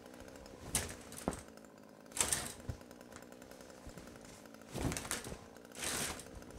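Short wooden knocks and scrapes, spaced a second or more apart, as carved wooden panels are handled. The last two near the end come as a long panel is lowered onto a stack of panels.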